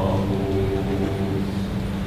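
Mixed youth choir holding a sustained chord, several voice parts on long steady notes, with a slight change in the upper notes about half a second in; the closing chord of the piece.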